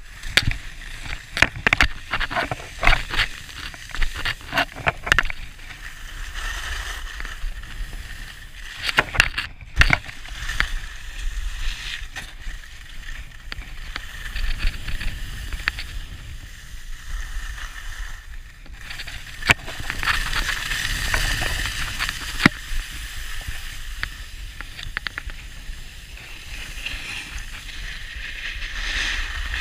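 Board or ski edges scraping and hissing over hard-packed groomed snow during a run down the slope, with low wind rumble on the microphone. Sharp knocks and rattles come in quick clusters in the first few seconds and again about ten seconds in.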